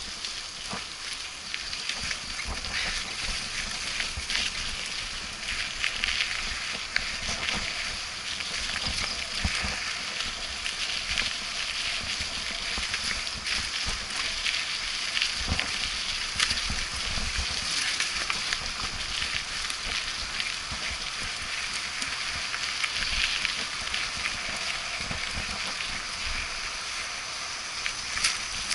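Mountain bike riding down a dirt singletrack: a steady hiss of tyres on dirt, with frequent short rattles and knocks as the bike goes over bumps.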